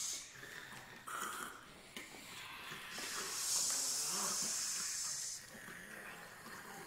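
Singers in a contemporary vocal sextet making hissing and breathy noises with their voices instead of sung notes. A long, loud hiss runs from about three seconds in to just past five, after shorter breath sounds and a couple of sharp clicks.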